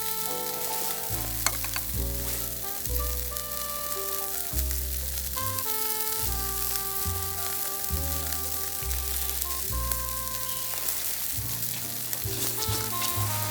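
Background music with a melody and bass line, over steady sizzling and light crackling of meat grilling over charcoal.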